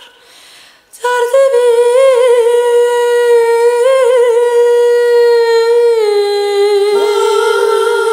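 Performance music of a wordless high vocal, humming or singing long held notes with vibrato. It breaks off briefly at the start, comes back about a second in, and steps down to a lower note around six seconds in.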